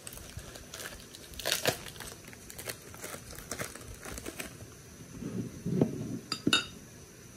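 Paper wrapping rustling and crinkling as a ceramic bowl is unwrapped and lifted out of a cardboard box, with a soft bump and then two light ceramic clinks near the end.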